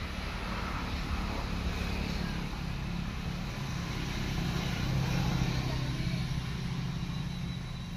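A motor engine running steadily as a low rumble, swelling a little about five seconds in and easing off again.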